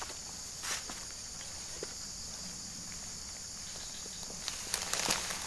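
Steady high-pitched insect chorus, with a few sharp rustling footsteps through the grass near the end.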